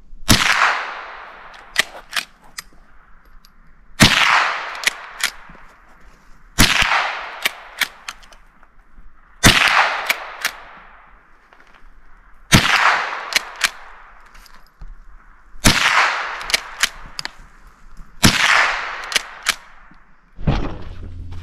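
A pump-action .22 rifle fired eight times, about every three seconds, each sharp crack trailing off in an echo. Quieter clicks come between the shots as the pump action is worked.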